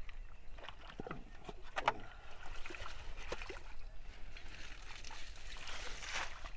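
Shallow muddy pond water sloshing and splashing as hands and bare feet move through it, with a few sharp knocks in the first two seconds and a denser spell of splashing near the end.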